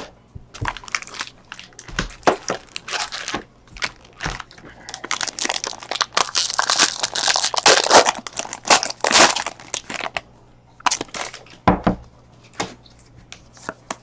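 Foil wrapper of a Bowman Draft baseball card pack being torn open and crinkled by hand, in irregular bursts of crinkling and rustling. The crinkling is densest and loudest in the middle, with a few sharp crackles near the end.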